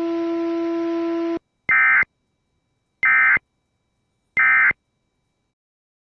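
Emergency Alert System end-of-message tones: three short bursts of digital data tones about 1.3 s apart, marking the end of the alert. They come after a steady low hum that cuts off about a second and a half in.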